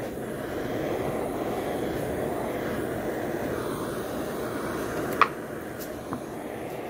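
Handheld gas torch burning with a steady rushing roar as its flame scorches a wooden coaster. A sharp knock about five seconds in and a lighter one a second later, as the wooden coaster is flipped over on the table.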